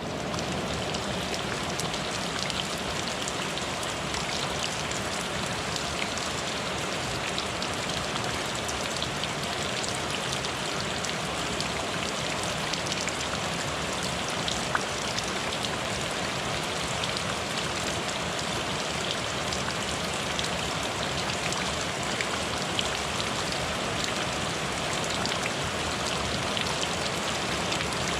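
Steady rain falling: an even hiss of water with countless small drop impacts.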